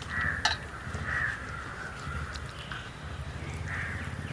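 Crows cawing several times in short raspy calls, with one sharp click about half a second in.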